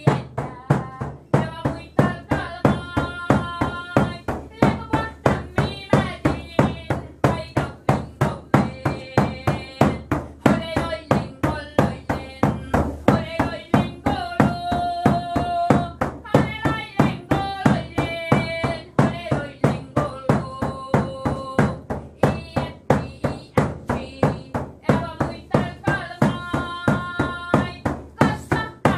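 A voice singing a traditional Sami song (yoik), with long held notes, over a steady beat of sharp strikes, about two to three a second.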